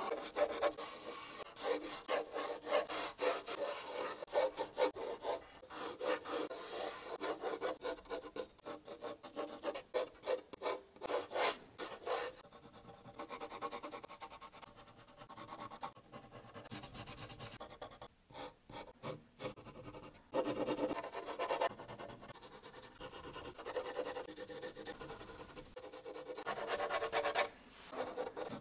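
Graphite pencil scratching on drawing paper: quick, irregular sketching and hatching strokes, with a few short quieter pauses.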